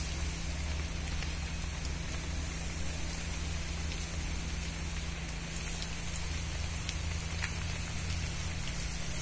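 Spray from a long fibre spray pole hissing and pattering onto arecanut palm fronds like rain, over a steady low hum.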